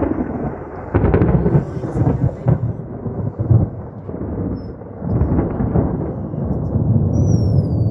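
Thunder from an electrical storm: a long, loud rolling rumble that swells and fades several times.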